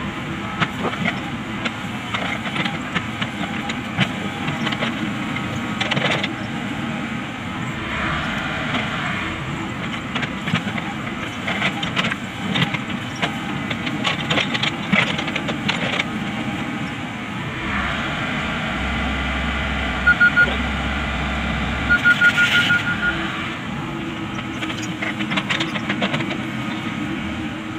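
Komatsu PC78US hydraulic excavator working, digging soil and loading it into a dump truck: a steady engine and hydraulic drone with frequent knocks and clanks from the bucket and tracks. Two short runs of rapid high beeps come about two-thirds of the way through.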